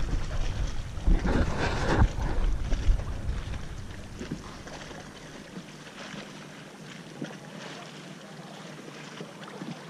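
Wind buffeting the microphone of a kayak-mounted camera for the first three seconds or so, then dying down to a quieter steady wash of choppy water along the kayak hull with a few light ticks.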